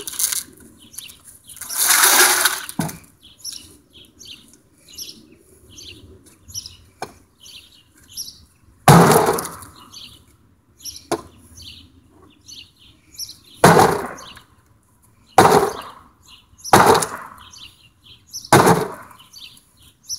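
Heavy blows struck into a thick door with a hand-held striking tool, splintering it. There is one longer crash about two seconds in, then five sharp impacts from about halfway, the last four in quick succession. Birds chirp in between.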